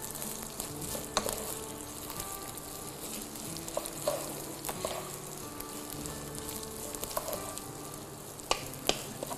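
Rice sizzling in a hot pot as it is stirred with a wooden spoon; the spoon knocks against the pot a few times.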